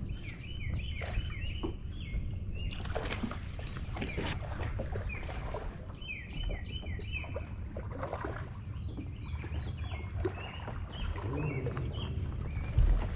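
A songbird singing in repeated bursts of quick, downward-slurred whistled notes, over a steady low rumble with scattered light clicks and knocks.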